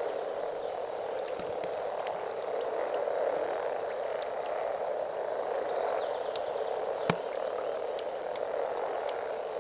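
A breeding chorus of many frogs calling at once, a dense, steady, low croaking from the spawning pond. There is one sharp click about seven seconds in.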